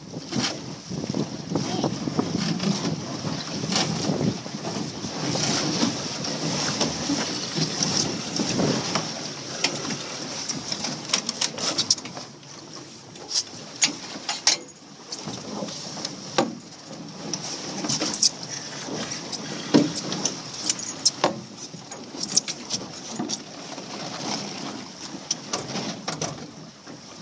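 Wind buffeting the microphone and water rushing along the hull of a Tasar dinghy under sail, with scattered sharp knocks and clicks throughout. It drops a little quieter for a few seconds around the middle.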